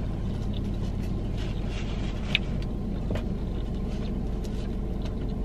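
Steady low hum of a car idling, heard from inside the cabin, with a few faint clicks of a fork against a takeout container, the sharpest about two and a half seconds in.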